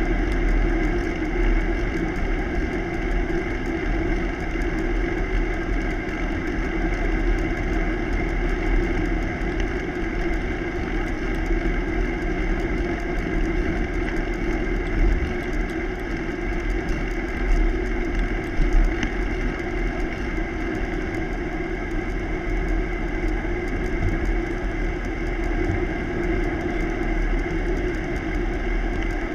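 Steady road noise of a bicycle rolling along a paved road: tyre hum with a low rumble of wind on the bike-mounted camera.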